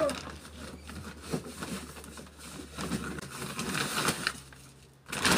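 Plastic feed bag rustling and crinkling as quail feed is scooped out into a carton, with scattered small taps and rattles of the pellets. A louder rustle comes near the end.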